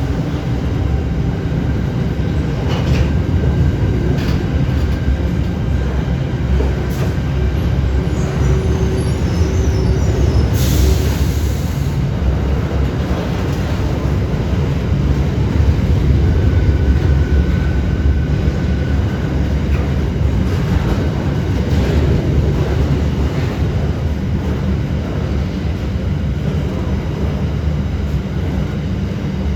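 Steel freight train rolling past at steady speed: a continuous low rumble of wheels on rail with light clicks, a short hiss about eleven seconds in and a faint brief wheel squeal a few seconds later.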